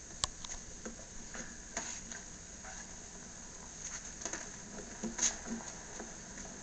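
Scattered light taps and clicks at irregular intervals over a faint steady hiss; the sharpest comes just after the start and another about five seconds in.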